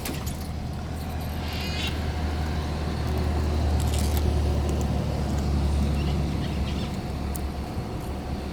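Low rumble of a motor vehicle that swells to its loudest midway and then eases, with a brief warbling bird call about one and a half seconds in.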